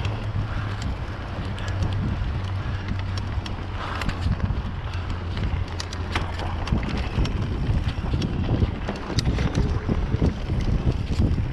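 Mountain bike riding over a grassy dirt trail: wind buffeting the microphone and a low tyre rumble, with short clicks and rattles from the bike over bumps that grow more frequent about halfway through.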